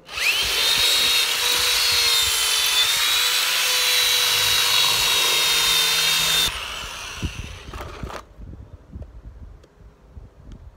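Handheld power drill spinning up and running at a steady high whine for about six seconds as it bores into the top of the truck cab. It then drops lower and stops about eight seconds in.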